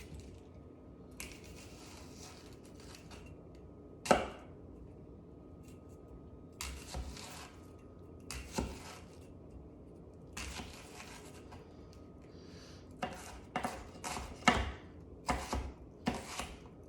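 A knife slicing through an onion in irregular strokes, with one sharp knock about four seconds in and a quicker run of cuts near the end.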